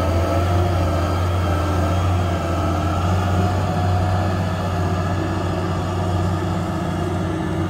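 Diesel engine of a 2015 Cat 563C wheeled feller buncher running steadily with an even low hum.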